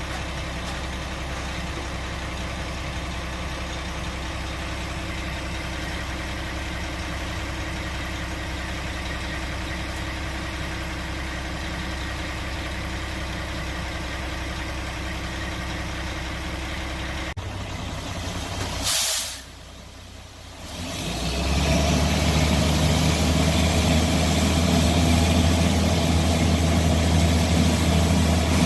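Concrete mixer truck's diesel engine idling steadily. About nineteen seconds in there is a short, sharp hiss, and after it the engine runs louder.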